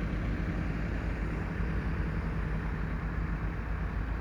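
Antique tractor engine running steadily: an even, low rumble with a faint steady hum over it.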